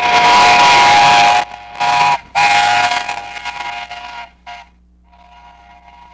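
Steam whistle of a small narrow-gauge steam locomotive blowing several blasts, long and short, sounding several notes at once over a rush of steam. The blasts stop about four and a half seconds in.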